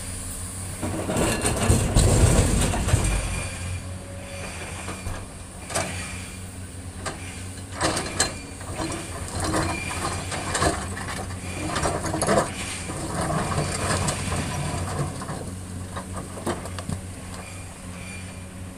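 Komatsu hydraulic excavator's diesel engine running steadily as it loads rock into a tipper truck. About a second in, a loud rumble and crash as a bucketload of boulders drops into the truck's steel body; then scattered knocks and scrapes of the bucket digging among rocks.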